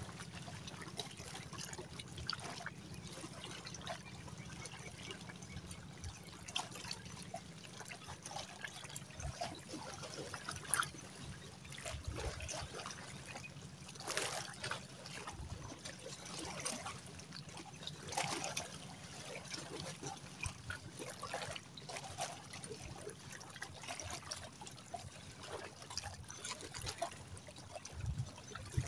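Shallow seawater trickling and lapping at the shoreline, with scattered faint clicks and knocks from handling the rod, line and a just-landed fish.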